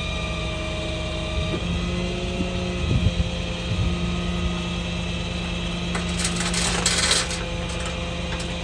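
Tow truck engine running steadily. About six seconds in comes a burst of metal chain clinking and rattling as the tow chains on the wheel-lift are handled.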